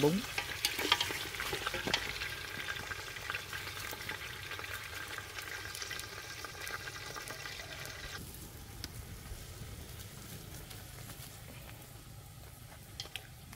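Duck pieces sizzling in hot oil as they are stir-fried in an aluminium pot, with the sharp clicks of chopsticks against the pot. The sizzle cuts off abruptly about eight seconds in, leaving a quieter stretch with a couple of clicks near the end.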